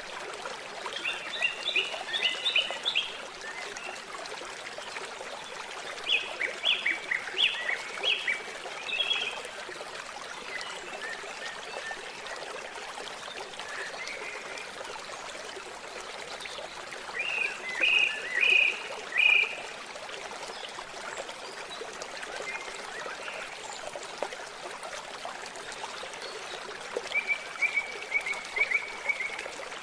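Steady sound of running, trickling water, with four short bursts of quick, high chirping calls from a small animal spread through it.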